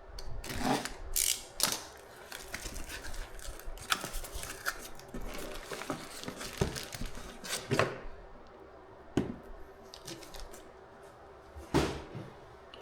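Hands handling packaging: rustling and crinkling broken by scattered sharp clicks and knocks, the loudest near the end.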